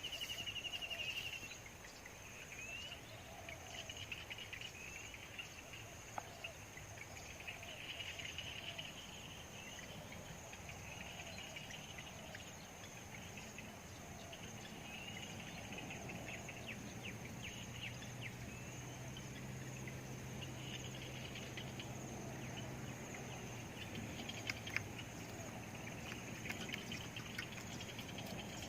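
Insects chirping in repeated trills over a steady high-pitched insect drone. A faint low hum comes in about halfway through.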